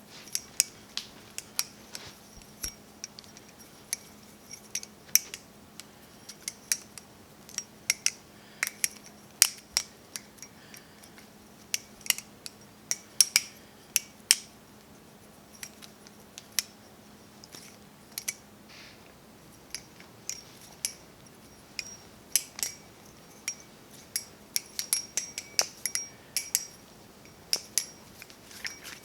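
Hazetac Channel balisong being flipped: the handles clack against each other and the blade, making sharp metallic clicks with a short bright ring, irregular and often several a second.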